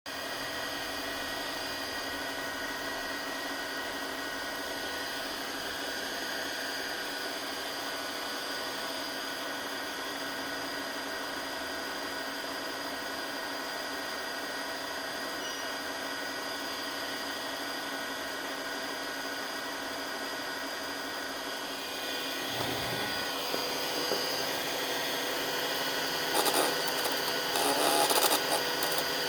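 A small motor or power tool running with a steady multi-toned whine. About three-quarters of the way through it gets louder and rougher, with rattling near the end.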